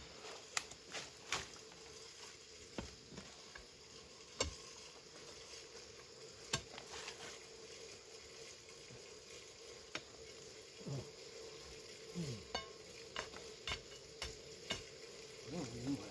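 Scattered scrapes and knocks of a hand digging tool working forest soil to set a plant in the ground, over a steady faint drone.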